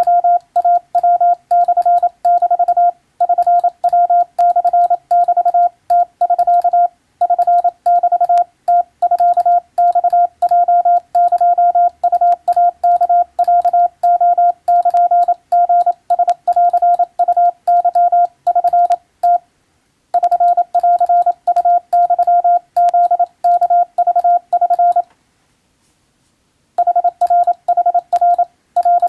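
Morse code sent with a telegraph key: a single steady beep of about 700 Hz keyed rapidly into dots and dashes, with short breaks between groups and a pause of about a second and a half near the end.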